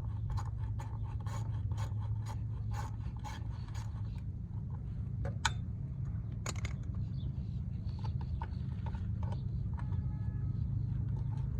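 A small 8mm socket ratchet clicking at about three clicks a second as a chain guard bolt is worked loose on a dirt bike, then slower, scattered clicks and a couple of sharper metal ticks. A steady low hum runs underneath.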